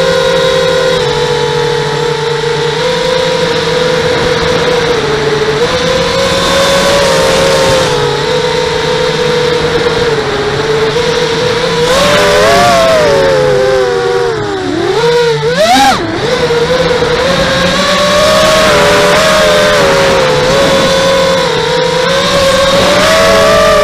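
Motors and propellers of a 5-inch quadcopter whining in flight: a cluster of close tones that shift in pitch with the throttle. About halfway through the pitch swoops up and down sharply a few times, then settles a little higher and climbs near the end.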